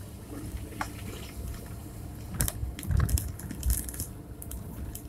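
Daihatsu Terios crawling in first gear through wet snow and muddy ruts, heard from inside the cabin. The engine runs low under the crunch of tyres in snow and mud, with a cluster of sharp cracks and crunches from about two and a half to four seconds in.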